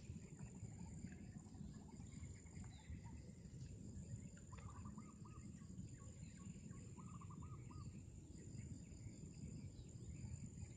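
Faint outdoor ambience: a low steady rumble with two short runs of quick repeated bird calls about halfway through.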